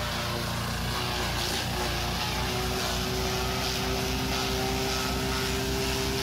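Motor-driven forage chopper running steadily while corn stalks are fed into it and chopped for silage, with a low pulsing about five times a second from about halfway in.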